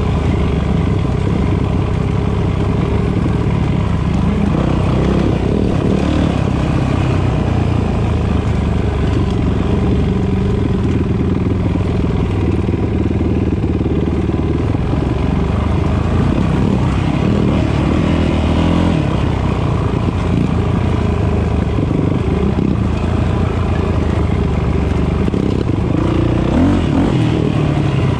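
Dirt bike engine running steadily while the bike rides a rough dirt trail, its pitch shifting a little with the throttle.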